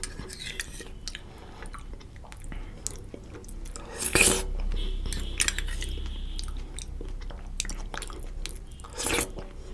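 Close-up mouth sounds of a person eating sweet rice pudding from a spoon: soft chewing with two louder wet mouth noises, about four seconds in and near the end, as spoonfuls go in. Small clicks of a steel spoon against a steel bowl.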